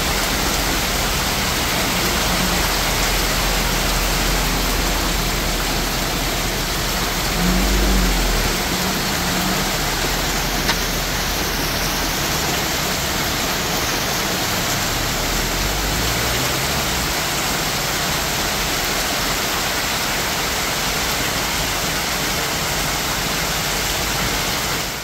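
Heavy tropical rain pouring steadily, a dense even hiss of the downpour on the flooded road and the trees. A low rumble swells briefly about eight seconds in.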